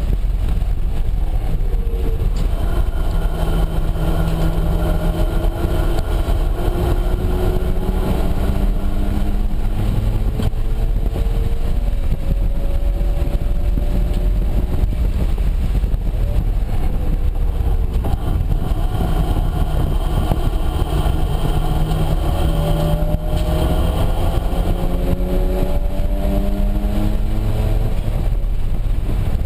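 Mazda RX-7's turbocharged rotary engine heard from inside the cabin under hard acceleration, its pitch climbing in two long pulls through the gears, over a steady low rumble of road and wind noise.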